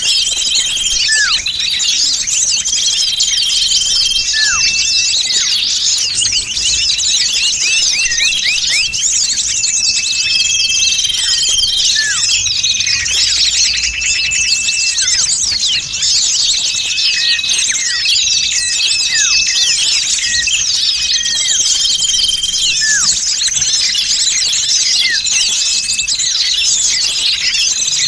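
A dense, busy chorus of small songbirds chirping and trilling without pause, with short whistled notes and a falling call every few seconds. It is a bird-luring (pikat) recording of noisy small birds, played to draw small birds in.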